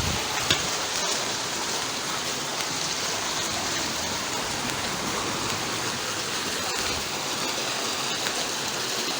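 Steady rushing of a river's flowing water, an even noise with no break.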